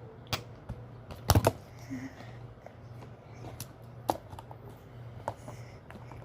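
Scattered clicks and taps of small essential-oil bottles, caps and a roller bottle being handled, with a cluster of sharp clicks about a second and a half in. A low steady hum underneath.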